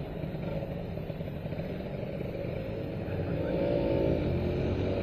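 Kawasaki Ninja 150 RR's two-stroke single-cylinder engine running on its stock exhaust while riding, getting louder about three seconds in as it picks up revs.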